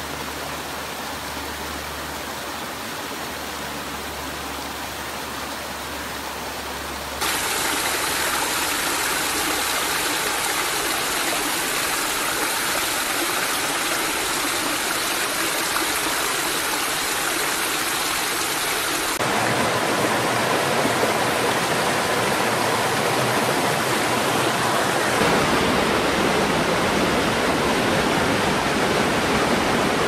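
Small waterfalls and rocky streams rushing and splashing, a steady water noise. The sound changes abruptly about 7 seconds in and again about 19 seconds in as one water recording gives way to another, each a little louder than the one before.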